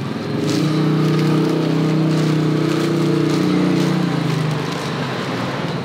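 A motor vehicle's engine running steadily at low revs, coming up about half a second in and fading away after about four seconds, over steady street background noise.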